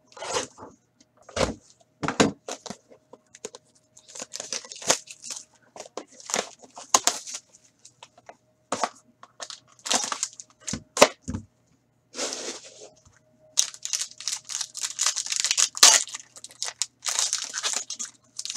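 Hands unsealing and opening a hockey trading-card box: cardboard and wrapping rustle in short strokes with a few knocks. From about two-thirds of the way in, a foil card pack crinkles and tears almost without a break.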